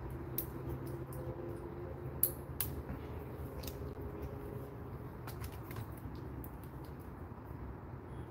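Scattered small clicks and creaks, one sharp click a little over two seconds in, over a steady low rumble.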